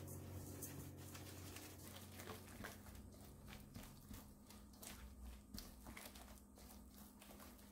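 Faint, irregular scraping and clicking of a spatula stirring thick red-pepper kimchi seasoning paste against a stainless steel bowl.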